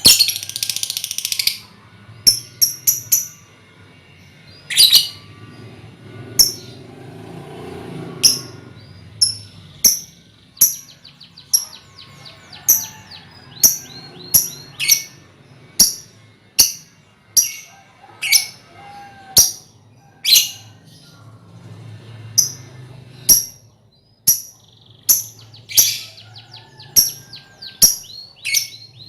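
A colony of young lovebirds calling: sharp, high chirps about once or twice a second, broken by runs of rapid chattering.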